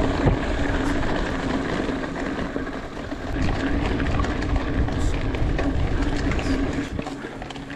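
Mountain bike running fast down a dirt trail: wind buffeting the microphone, tyres rumbling over the ground and the bike rattling over bumps.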